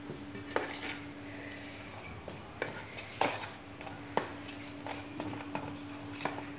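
A steel spoon stirring thick besan (gram-flour) batter in a stainless steel bowl, with a few irregular clinks of the spoon against the bowl. The batter is being stirred steadily to keep it free of lumps.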